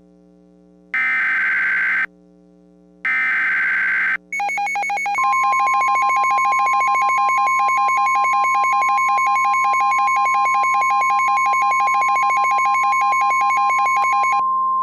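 Emergency alert data bursts (SAME header): two harsh, buzzy one-second bursts about a second apart. About four seconds in, an alert tone starts, a rapidly warbling electronic tone joined a second later by a steady high tone near 1 kHz, the NOAA Weather Radio warning alarm signalling a new warning.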